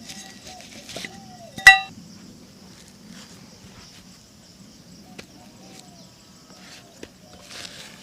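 Shoe-shine work sounds against a steady outdoor background: a few light clicks and brief rubbing strokes, and one loud, sharp metallic clink with a short ring under two seconds in.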